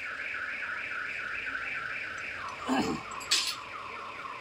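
Electronic alarm warbling between two pitches, about four cycles a second, dropping lower about halfway through, with a short metallic clink about three seconds in.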